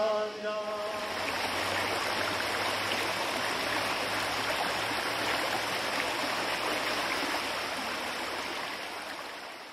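Steady rush of flowing water, with the last of a chant dying away in the first second; the water sound fades out near the end.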